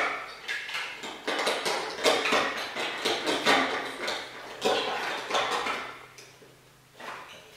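Loose plastic Lego bricks clattering and clicking as they are handled, in repeated bursts of rattling that die down near the end.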